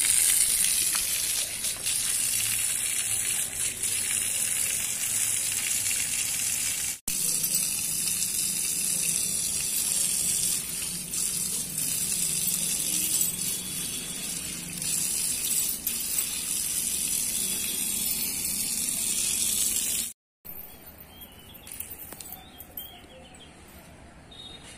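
Water gushing from an open outdoor tap and splashing onto a concrete floor, a steady hiss. About twenty seconds in it cuts off suddenly, leaving quieter outdoor background with faint bird chirps.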